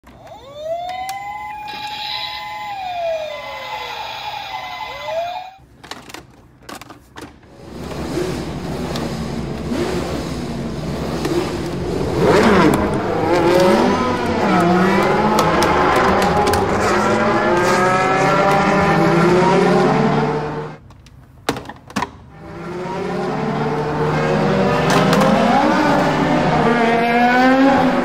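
A toy ambulance's electronic siren wails up and down for the first five seconds. After that comes toy race-car sound effects from a large Lightning McQueen toy car's speaker: long wavy stretches of electronic engine revving, with a short break about 21 seconds in.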